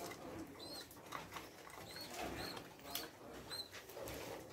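Fantail pigeons cooing softly while they feed, with short clicks and a faint high chirp repeating roughly every half second.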